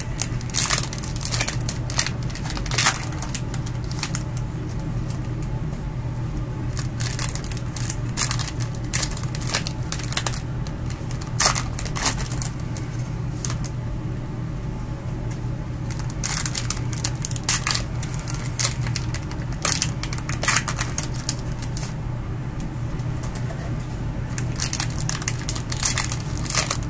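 Topps Finest baseball card pack wrappers crinkling as gloved hands tear them open and handle the cards, with irregular crackles throughout. A steady low hum runs underneath.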